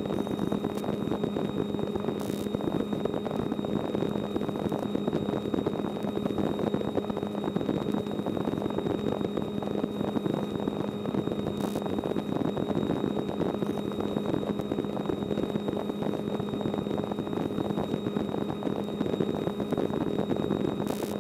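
Small aircraft's engine and propeller droning steadily in cruise flight, heard inside the cabin, with a constant low hum and a faint steady high whine over the noise.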